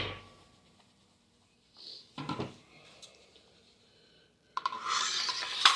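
Metal parts of a Tokarev TAR-12 shotgun being handled during reassembly: a few light clicks about two seconds in, then a scraping slide of metal on metal for about a second that ends in a sharp click near the end.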